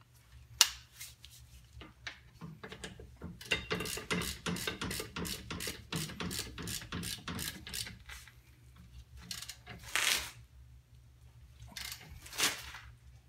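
Ratchet wrench clicking as the brake caliper bracket bolts are tightened: a sharp click just after the start, then a quick run of clicks, about four or five a second, for several seconds. A couple of louder short noises near the end, over a low steady hum.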